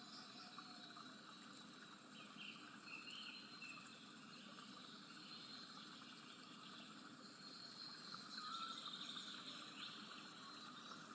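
Near silence: faint background noise with a few faint, short, high chirping calls.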